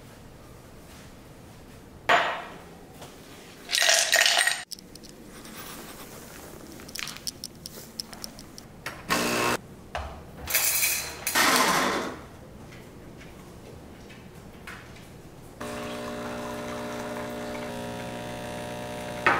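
Clatters and clinks of metal espresso gear and a cup being handled and set down. Near the end, a Breville espresso machine's pump switches on with a steady buzzing hum as the shot pulls.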